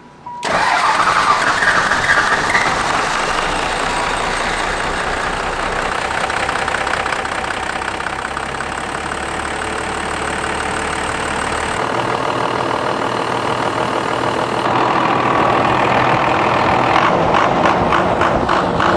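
A Dodge Ram's 12-valve Cummins 5.9-litre inline-six turbodiesel starting up and running steadily at idle. It is the engine's first start after the injector lines were bled following an engine overhaul, and it runs well.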